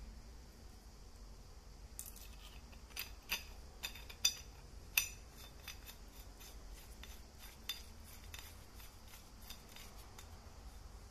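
Sharp metallic clicks and clinks of a telescopic baton's metal end fittings being handled, as the threaded end cap is off and a chrome tip is fitted onto the grip. A quick run of clicks near the middle, then a few sparser ones.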